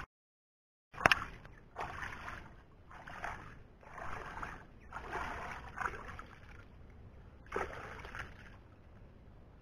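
Hands splashing and scooping in shallow muddy water, a string of irregular splashes about one a second that comes in after a second of dead silence and thins out near the end.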